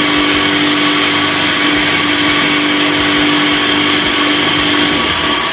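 Homemade table saw, a 7-inch blade driven by belt and pulley from a reused jet-pump electric motor, running free at full speed without cutting: a steady motor hum and blade whir with one strong fixed tone. Near the end it is switched off and starts to wind down.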